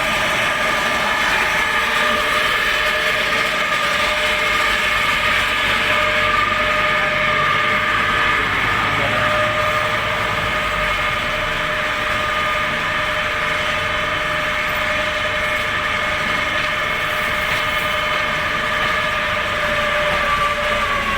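Electric drive unit of a feed mixer running with a steady high whine.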